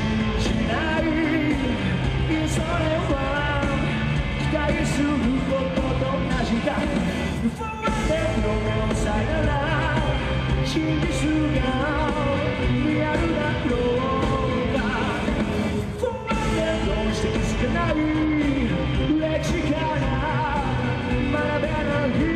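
Live Japanese rock band playing a song: a lead vocalist singing over electric guitar, bass guitar and drums. The sound drops out briefly twice, near 8 s and again near 16 s.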